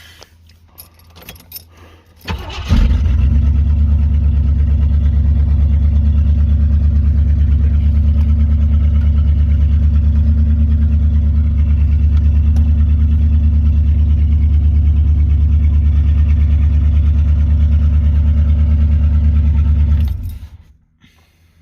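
A car engine is started about two seconds in, catching quickly, then runs steadily at an even idle with a loud low rumble. It is switched off near the end and dies away within about half a second.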